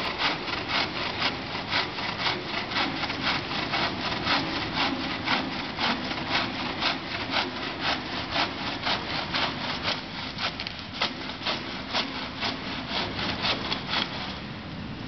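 Bow saw cutting through a wooden board by hand: quick, even back-and-forth strokes of the blade rasping through the wood, about three a second, a little softer from about ten seconds in.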